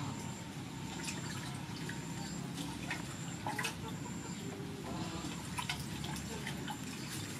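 Water dripping and splashing lightly in a large stainless steel basin as hands work noodles soaking in cold water, with scattered small drips and splashes throughout.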